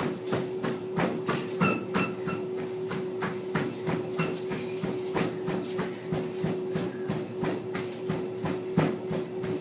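Treadmill running: its motor gives a steady whine under a rhythmic patter of footfalls on the moving belt, about three steps a second.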